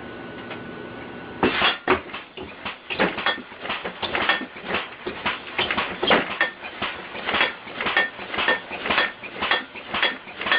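Compressed-air-powered, computer-controlled alarm contraption going off: after a faint steady hiss, a sudden rapid clattering starts about a second and a half in, with ringing metallic knocks at roughly three a second.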